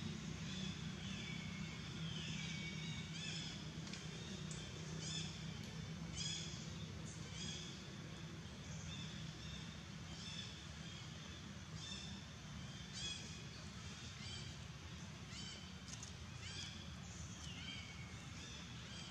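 Short, high animal calls repeating about once a second, with a few longer falling calls near the start and again near the end, over a steady low hum.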